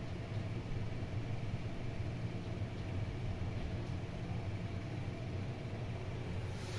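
Steady low rumble of background noise, with a brief high hissing noise at the very end.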